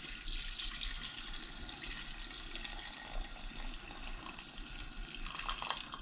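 Chicken broth pouring from a can in a thin stream into a pot of water, a steady trickling splash.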